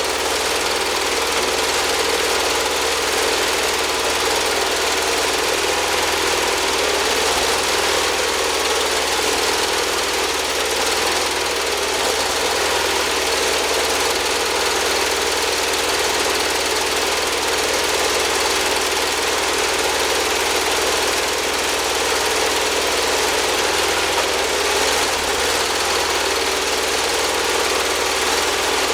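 Wood-Mizer portable band sawmill running, giving a steady, unbroken mechanical noise.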